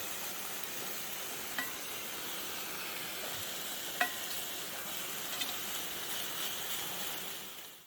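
Chicken and freshly added vegetables sizzling steadily in a frying pan on a camping stove while being stirred, with two short clinks about one and a half and four seconds in. The sizzle fades out near the end.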